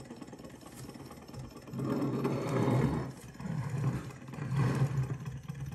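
Small alpha-type hot-air Stirling engine model running steadily on its flame with a soft, rapid mechanical whir from its pistons, linkage and flywheel, running smooth and quiet. It grows louder in uneven swells from about two seconds in.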